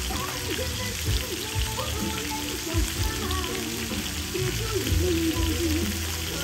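Beef short ribs, shrimp and sausages sizzling steadily on a tabletop grill pan, under a song with a singing voice.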